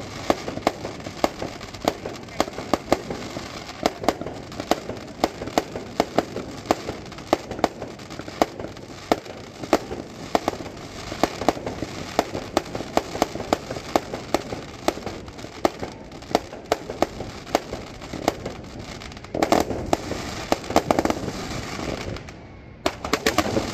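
Fireworks display: aerial shells bursting in a dense run of sharp bangs and crackles, several a second. There is a louder stretch near the end, then a brief lull before the bangs resume.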